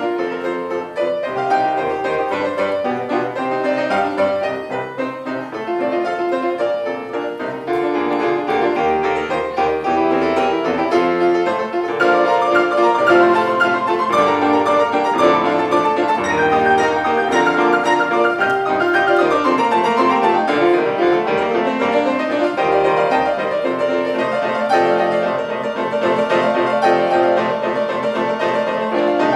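Piano playing a lively piece, with quick runs of notes that sweep down and back up about twenty seconds in.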